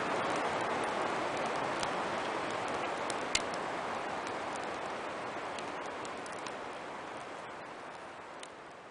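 Campfire crackling: scattered sharp pops and ticks over a steady rushing hiss that slowly grows fainter.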